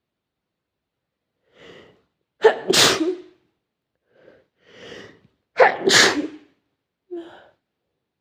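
A person sneezing twice, about three seconds apart, each loud sneeze preceded by a quieter breath in. A short breathy sound follows near the end.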